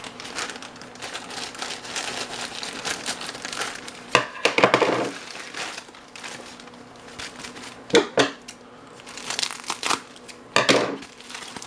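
Parcel packaging crinkling and rustling as it is handled and opened, with louder crackles about four, eight and eleven seconds in.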